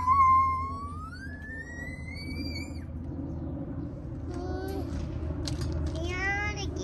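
A young child's high voice: one long vocal sound gliding up in pitch for about three seconds, then two shorter vocal sounds in the second half, over a low steady hum.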